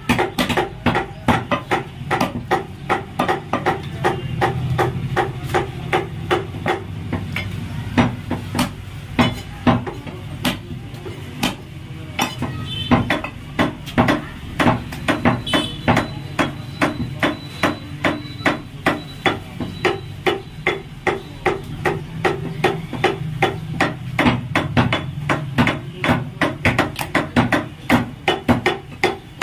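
Butcher's cleaver chopping goat meat and bone on a wooden log chopping block: rapid repeated chops, a few each second, with a brief lull near the middle.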